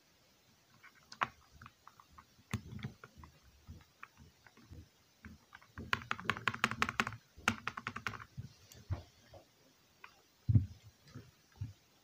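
Mechanical keyboard with red switches being typed on: scattered keystrokes, then a fast flurry of keys about six seconds in. A heavier thump comes near the end.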